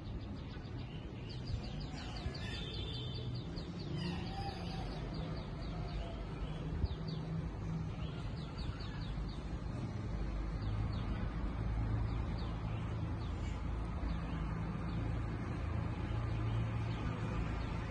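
Small birds chirping in quick high series, over a steady low engine hum from traffic that grows louder about halfway through.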